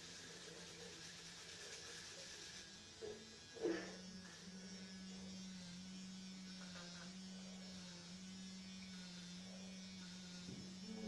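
Electric toothbrush buzzing steadily during tooth brushing. Its pitch steps up slightly and the buzz gets louder just after a couple of faint knocks about three to four seconds in.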